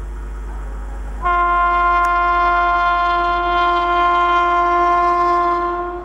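WAP-7 electric locomotive sounding one long, steady horn blast, starting about a second in, as it approaches.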